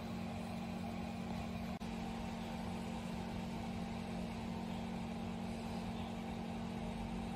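A steady low mechanical hum under a constant hiss, briefly cutting out for an instant about two seconds in.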